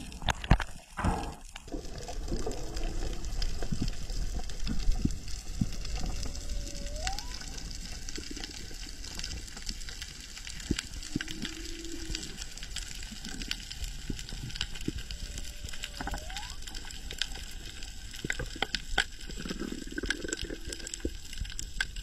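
Underwater ambience at a reef heard through the camera underwater: constant crackling clicks and water noise. There are a few loud knocks and a rush of water in the first second or so, and a few short faint squeaks, two of them rising in pitch.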